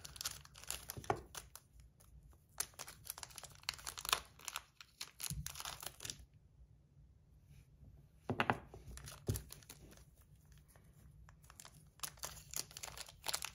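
Packaging being torn open and crinkled by hand, in short irregular rustles with scattered small clicks and a brief pause about halfway through.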